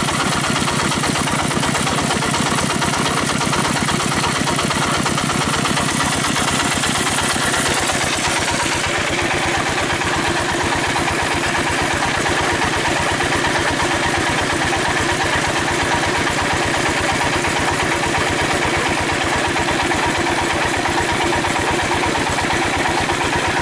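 Dompeng single-cylinder diesel engine running steadily at a fast, even beat.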